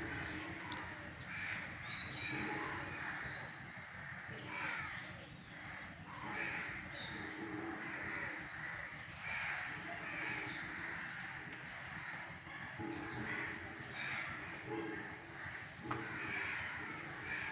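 Crows cawing repeatedly, with a call every second or so.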